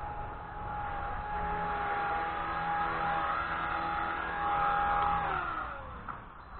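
Blade 180 CFX electric RC helicopter's motor and rotors whining steadily, then the pitch falls away about five seconds in as the rotor spools down. Wind rumbling on the microphone underneath.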